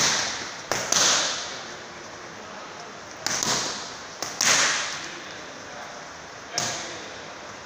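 Boxing gloves smacking leather focus mitts in quick combinations: three quick doubles, then one single punch, each sharp smack trailing off in a short echo.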